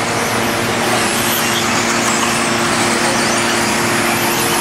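Electric radio-controlled buggies racing on a dirt track: a steady whirring hiss of motors, gears and tyres, with no rise or fall.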